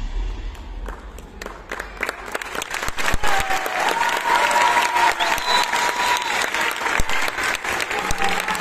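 Audience applauding, the clapping building up about two seconds in as the music ends, with voices calling out among it.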